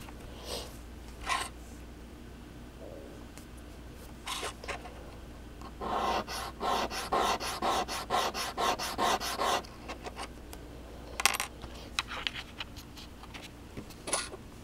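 A gold ring is rubbed quickly back and forth on a black touchstone, making a run of rapid scraping strokes, several a second, for about three and a half seconds mid-way, with a few single scrapes and taps before and after. The rubbing lays a metal streak on the stone for acid testing.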